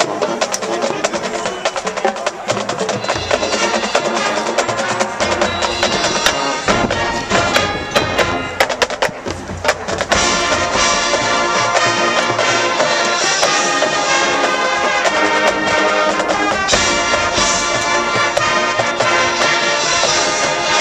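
High school marching band playing its field show: a percussion-led passage of sharp drum and wood-block-like hits, then about ten seconds in the full band comes in louder with brass holding sustained chords.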